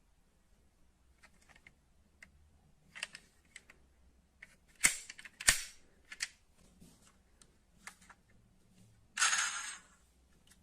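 Sharp clicks and clacks of a die-cast metal model car being handled, with two loud clicks about five seconds in and a brief scraping rush near the end.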